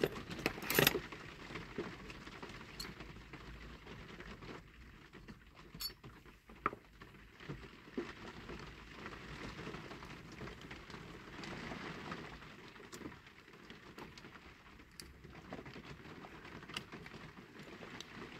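Quiet handling noises from fingers working a diecast toy car's baseplate and wheels while a wheel is fitted onto its axle: scattered small clicks and soft rubbing, with a couple of sharper clicks about a second in.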